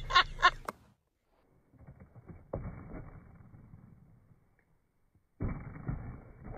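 A skateboard hitting rough asphalt twice, a few seconds apart; each knock is sudden and trails off into a short rumble.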